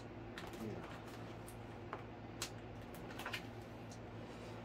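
Hands working a foam RC jet's wing against its fuselage to line up the screw holes: faint, scattered small clicks and rustles over a steady low hum.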